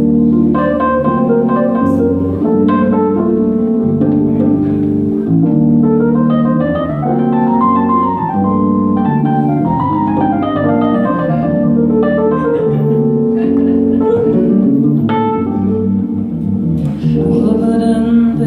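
Live instrumental passage of electric keyboard and electric bass, the keyboard holding long sustained chords over the bass line. A singing voice comes in near the end.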